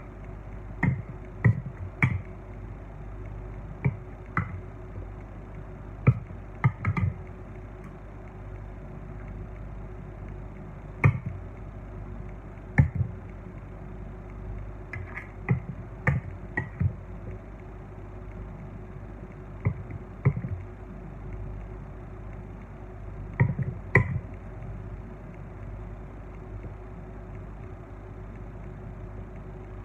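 Metal icing spatula clicking and tapping against a steel cake turntable as buttercream is smoothed on a cake: irregular sharp taps, often two or three close together, over a steady low hum.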